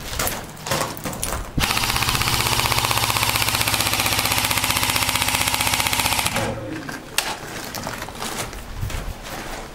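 Airsoft electric rifle firing one long full-auto burst of about five seconds, an even rapid rattle of the gearbox cycling, starting a little over a second in and stopping abruptly. Scattered knocks and scuffs of movement on rubble before and after.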